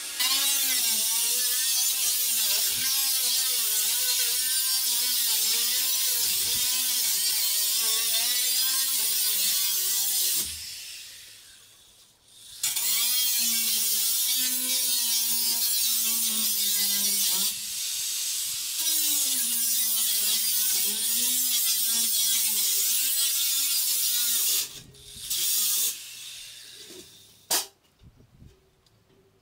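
Angle grinder cutting a window opening in the shed wall, its motor pitch wavering as the disc bites. It runs for about ten seconds and winds down, cuts again for about twelve seconds, then gives a couple of short bursts near the end.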